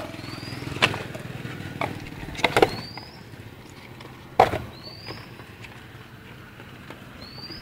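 Plastic food tubs and lids knocking and clattering on pavement a few times, the loudest knock about halfway through. A short, high rising chirp recurs four times.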